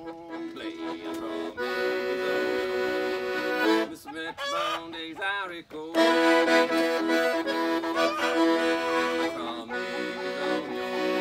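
Piano accordion playing an instrumental passage of a zydeco tune with sustained chords and melody, breaking off briefly about four to six seconds in.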